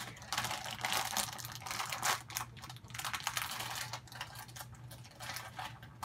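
Rapid crinkling and rustling of plastic toy packaging being handled and torn open, busiest for the first four seconds or so, then lighter.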